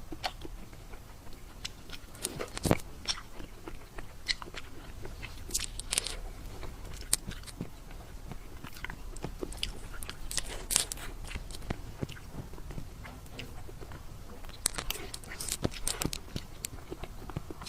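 Close-miked eating sounds: irregular crisp bites and crunchy chewing of a baked dessert.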